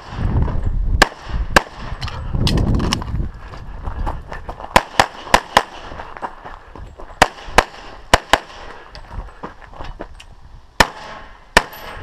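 About a dozen pistol shots from an EAA/Tanfoglio Witness Elite Match in .40 S&W, fired in quick pairs with short gaps between strings. Low rumbling noise runs under the first few seconds.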